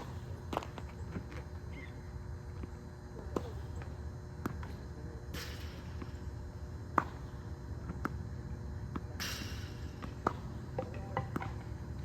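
Slinger tennis ball machine launching a ball with a short whoosh about every four seconds, with sharp pops of tennis balls bouncing and being struck by a racket in between. The loudest pop comes about seven seconds in.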